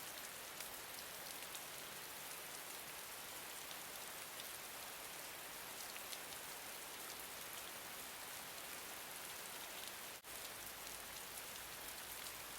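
Gentle rain falling steadily, a fine hiss dotted with many small drop ticks. About ten seconds in, the sound dips out for an instant and comes back with a faint low rumble under it.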